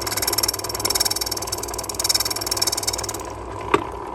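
The front edge of a brass key being filed or rubbed flat against an abrasive surface: a fine, fast metal rasping for about three seconds that then stops, followed by a single sharp click near the end. A steady low machine hum runs underneath.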